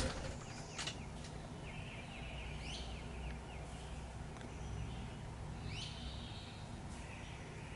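Faint bird calls: a few short chirps, in two brief bunches, over a steady low outdoor background hum.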